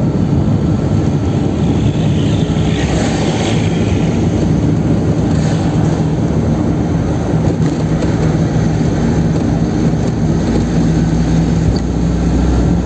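Chevrolet Kadett 1.8 four-cylinder, naturally aspirated, driving at speed: a steady engine drone with road and wind noise. The engine note grows firmer from about halfway, and there are brief rushes of higher noise around three and five seconds in.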